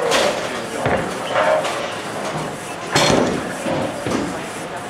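Bowling alley din: two sharp crashes, one at the start and one about three seconds in, over a murmur of background voices.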